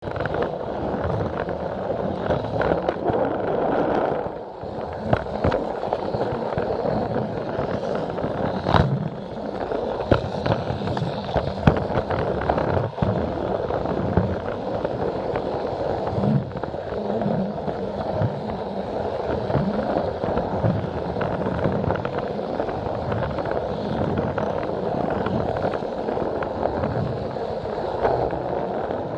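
Battery-powered Plarail toy train running on plastic track, its small motor and gears whirring steadily while the wheels clatter over the track, with sharp clicks and knocks now and then.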